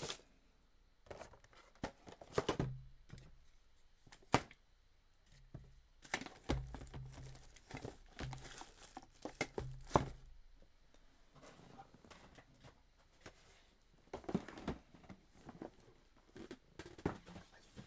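Cardboard boxes and packaging being handled: tearing and crinkling, with scattered knocks and thuds.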